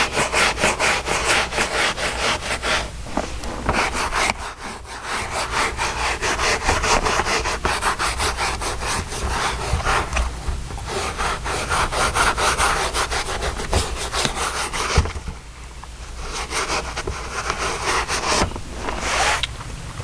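Stiff hand brush scrubbing truck floor carpet in rapid back-and-forth strokes, with a short break about three-quarters of the way through.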